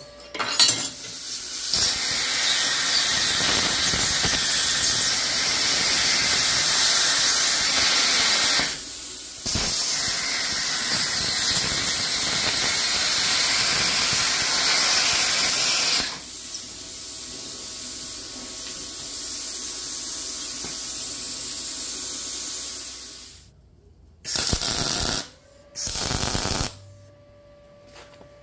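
Arccaptain plasma cutter cutting steel tubing: a loud, steady hiss of the arc and compressed air for about eight seconds, a brief break, then about six seconds more. After that comes a quieter steady rush of air for several seconds, then two short bursts of about a second each near the end.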